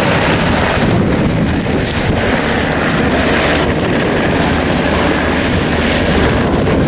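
Two UH-60 Black Hawk helicopters flying past low overhead, their rotors beating steadily in a loud, continuous drone.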